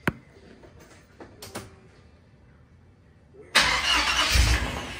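GM Performance crate 350 small-block V8 being started cold: a sharp click near the beginning, then about three and a half seconds in the engine turns over and fires with a sudden loud burst that fades away near the end rather than settling into a steady idle. The owner reckons it needs a little gas to catch.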